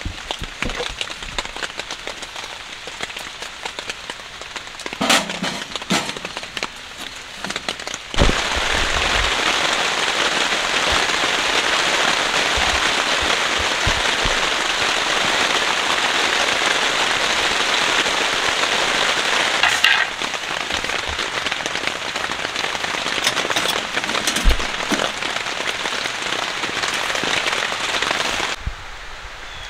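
Wood fire crackling and popping in a small metal tent stove. About eight seconds in, a steady hiss of rain falling on the tent fabric starts suddenly and takes over, stopping just before the end.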